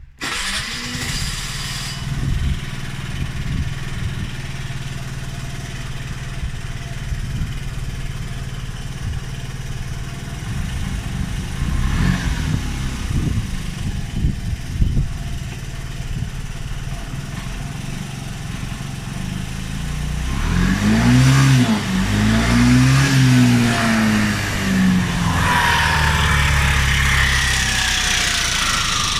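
Piaggio X9 125 scooter's single-cylinder four-stroke engine starting and running at idle, revved twice about two-thirds of the way through. The engine has just had its cylinder head gasket replaced, and the owner is unsure whether these noises are normal or whether the timing may be out.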